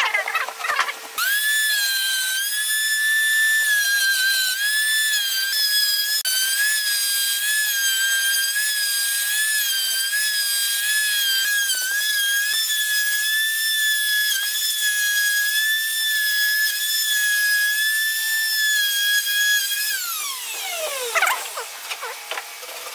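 Plunge router switched on about a second in, running with a high steady whine that dips slightly in pitch as it cuts along the jig. Near the end it is switched off and winds down with a falling whine.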